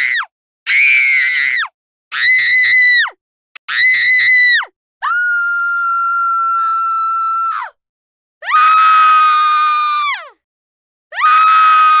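A series of separate high-pitched human screams, about six in a row with short silent gaps between them. Each trails off with a falling pitch. The middle one is held at a steady pitch for over two seconds.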